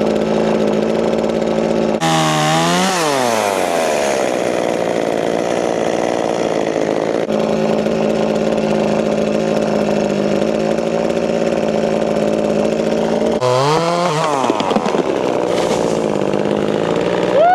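Two-stroke chainsaw running at high revs, its pitch dropping and climbing back twice, about two seconds in and again near thirteen seconds.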